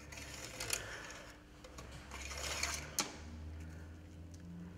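Engine oil dipstick of a BMW 320d being drawn out of its tube and handled with a rag to check the oil level after refilling: scraping and rustling in two stretches, with a sharp click about three seconds in, over a low steady hum.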